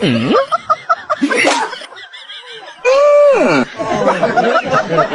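Human voices laughing and making non-word exclamations, with a long held cry about three seconds in that drops in pitch at its end.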